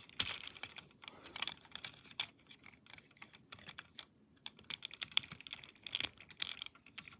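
Plastic Transformers Grindor action figure being handled: a string of small, irregular plastic clicks and taps as its parts are moved, with a louder cluster of clicks about six seconds in.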